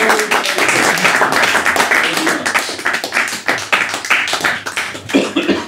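Audience applauding at the end of a talk: many hands clapping densely, thinning and fading toward the end.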